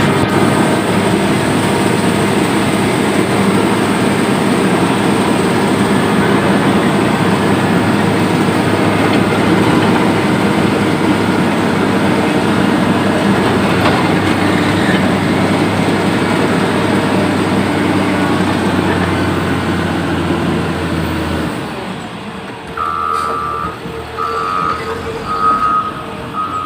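Heavy diesel road-works machinery running steadily under load while scraping the road surface. Its engine drops off about 22 seconds in, and a reversing alarm then beeps repeatedly for the last few seconds.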